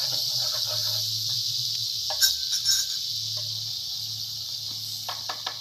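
Hot oil sizzling steadily in a frying pan, easing off slightly, with wooden chopsticks clicking against the pan a few times about two seconds in and again near the end.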